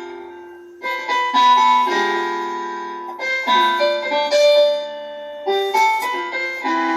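Piano music: groups of notes and chords struck and left to ring and fade, with a new phrase starting every two to three seconds.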